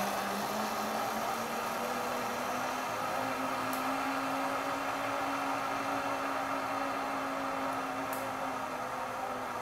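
Zip line trolley's pulleys rolling along the steel cable: a steady whirring hum whose pitch rises over the first few seconds as the rider gathers speed, then eases slightly near the end.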